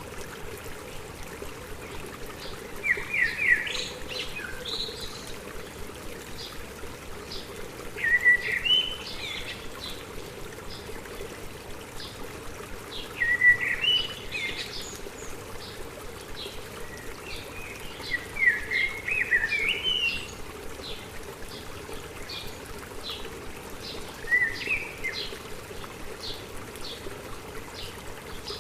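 A songbird repeating a short, rising, warbling phrase about every five seconds, with faint quick chips from another bird between, over the steady rush and trickle of a stream.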